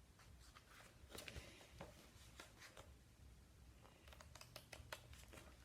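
Near silence: faint room hum with a scatter of soft clicks and rustles.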